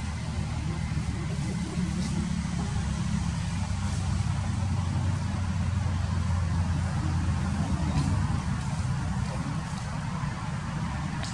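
Low, steady engine rumble, louder in the middle stretch, with a few faint ticks.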